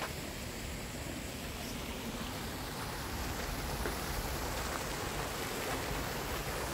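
Fountain water splashing steadily: a small jet falling back into a stone basin and water spilling over a cascade, a little louder after about three seconds.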